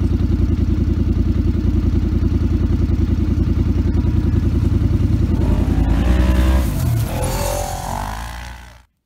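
Polaris RZR side-by-side's engine running steadily while driving over rough ground, heard from on board. Its note rises and falls a few times in the second half, then fades out just before the end.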